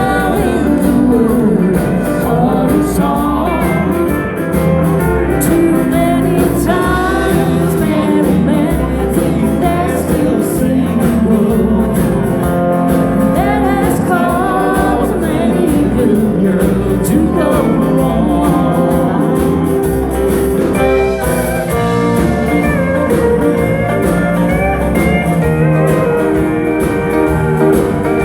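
Live country-rock band playing a song with a male lead vocal over guitars, bass and drums; about two-thirds of the way through the singing gives way to an instrumental guitar passage.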